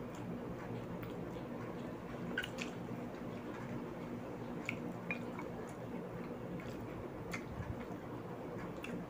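Close-up mouth sounds of chewing boiled okra dipped in fish bagoong: wet smacks and scattered sharp clicks over a steady low hum.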